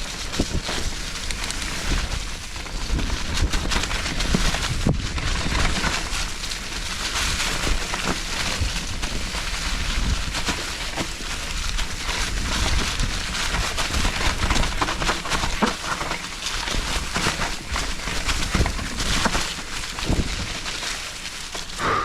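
Nukeproof Giga 297 full-suspension mountain bike riding a rough dirt trail: tyres rattling over rocks and roots with frequent knocks and clatter from the bike, and wind buffeting the chin-mounted camera's microphone. A brief squeal right near the end.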